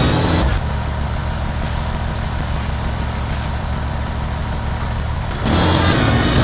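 Kubota BX compact tractor's diesel engine running steadily. A fuller, louder layer of sound drops away about half a second in and comes back about a second before the end.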